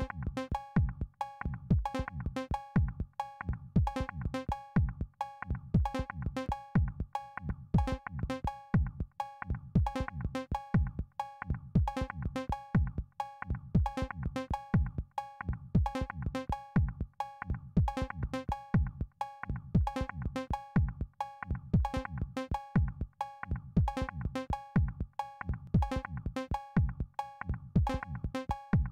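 Live-coded electronic beat: a looping drum-machine pattern of 808 bass drum kicks, several a second with a deep falling thud, mixed with sharp sampled clicks and a repeating higher pitched tone pattern.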